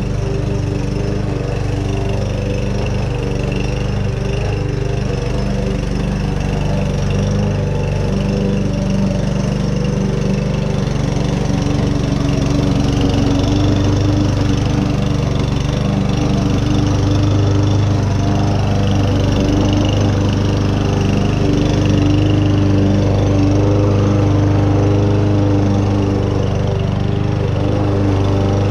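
Small gas engine of lawn care equipment running steadily at an even, constant speed.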